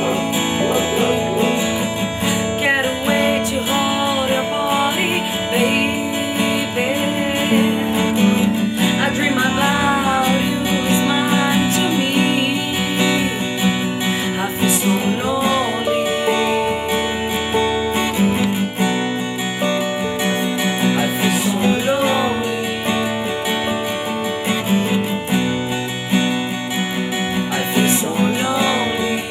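Music: strummed acoustic guitar with a melody line gliding and wavering above it.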